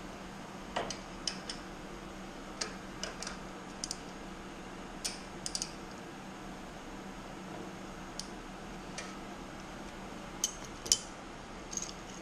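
Metal hand tools (sockets, a ratchet and wrenches) clinking and clicking against each other as they are handled on a rubber tool tray. About a dozen sharp clinks come at irregular intervals, the loudest near the end, over a steady low hum.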